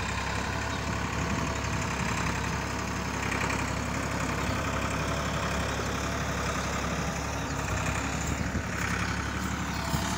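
Massey Ferguson 260 tractor's three-cylinder diesel engine running steadily as it pulls a trolley heavily loaded with sugarcane.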